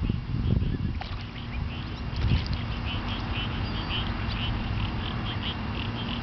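Ducklings peeping: short, high calls repeating about two or three times a second. Low rumbles come near the start and again around two seconds in.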